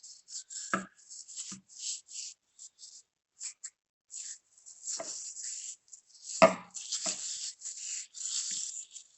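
Gritty salt-and-coconut-oil scrub rubbed over the skin of the hands in short, irregular scratchy strokes, with a few soft knocks, the loudest about six and a half seconds in.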